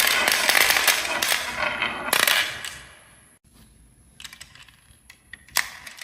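Marbles rattling and clicking down a wooden marble run. The clatter dies away about three seconds in, leaving a few single clicks near the end.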